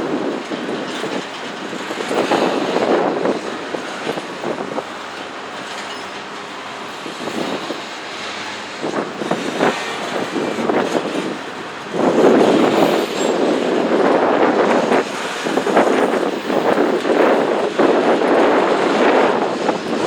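A Norfolk Southern freight train's cars rolling past, steel wheels clattering on the rails, with no horn sounding. The rolling noise grows louder about twelve seconds in.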